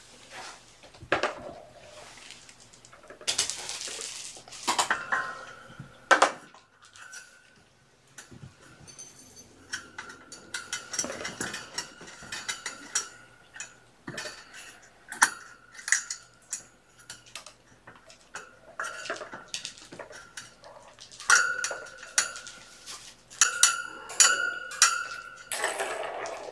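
Cat toys rattling and clinking as kittens bat them about: irregular light plastic clicks of balls in a ball-track toy, with short bell-like jingles.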